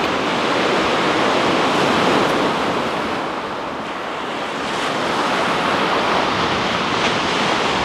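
Sea surf washing on a shingle beach: a steady rushing that eases about four seconds in and builds again.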